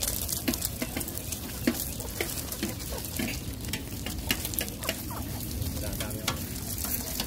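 Irregular crackling and light clicks of a dog nosing and eating food out of a plastic bag on gravel, with puppies moving about.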